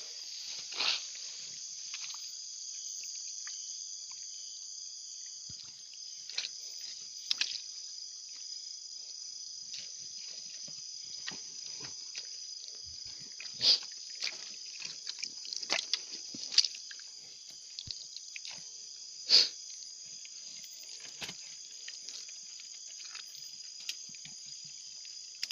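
Steady high-pitched drone of an insect chorus, with scattered short clicks and knocks over it; the loudest knocks come about 14 and 19 seconds in.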